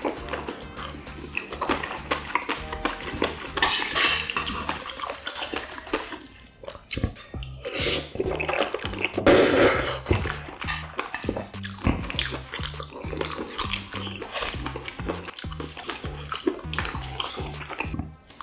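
Close-miked eating sounds: wet chewing of chewy stir-fried small octopus and beef large intestine, with chopsticks clicking on dishes and two louder bursts of noise partway through. Background music with a steady bass beat runs under it.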